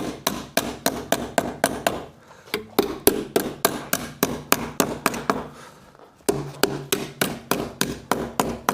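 Rapid sharp strikes on the wooden seat frame of an upholstered chair, about four a second, in three runs with two short pauses, as lathes and straps are fixed down around all four sides.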